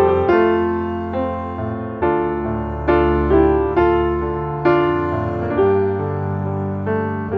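Background music: piano chords struck about once a second, each note ringing and fading.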